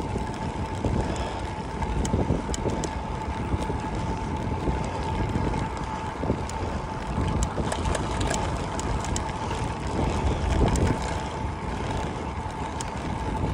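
Wind rushing over the microphone and bicycle tyres rolling on cracked concrete, with scattered light clicks and knocks over the cracks and a steady thin whine underneath.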